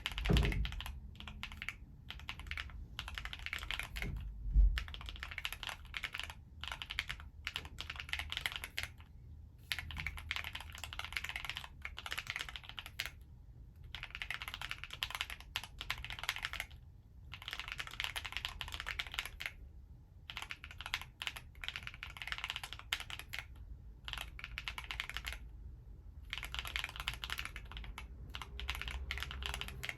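Typing on an Alice-layout mechanical keyboard: runs of rapid key clacks broken by brief pauses, with a heavier low thump about four and a half seconds in.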